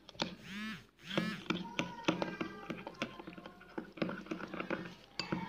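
A metal spoon clinks and scrapes against a glass bowl as flour and water are stirred into a paste, in many quick taps. Two brief, high, bending vocal sounds are heard about half a second and a second in.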